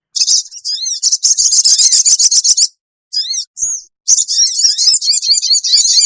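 Sogon sunbird giving its shrill 'jeritan' (scream) call, the kind used as a bird-lure recording: rapid high-pitched chittering and twittering phrases in loud bursts, with a short pause about three seconds in.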